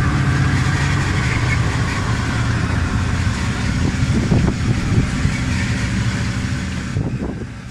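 Engine of a small tourist road train running steadily, heard from the open carriage behind it, with rattle and a few knocks from the ride. It fades out at the very end.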